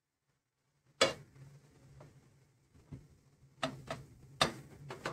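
Plastic spatula knocking and clicking against a nonstick frying pan while turning a pancake: one sharp knock about a second in, then several lighter clicks near the end, over a low steady hum.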